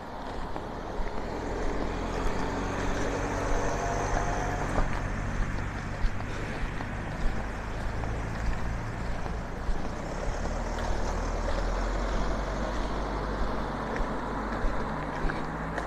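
Road traffic: cars and a van passing on the road, with steady tyre and engine noise that swells in the first few seconds as a vehicle approaches and goes by.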